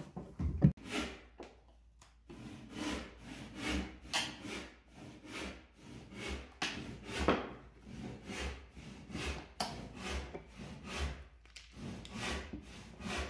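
Steel hand tools scraping and levering against a plywood subfloor as old flooring staples are pried up and pulled out, in a run of short scraping strokes about two a second.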